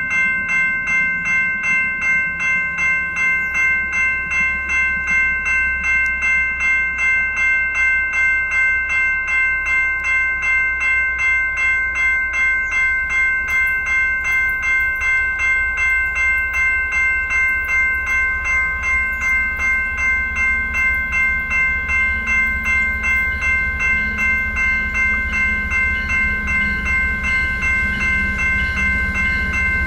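Railroad crossing warning bell ringing in rapid, even strokes. From about halfway in, the low rumble of an approaching commuter-rail diesel locomotive grows louder underneath it.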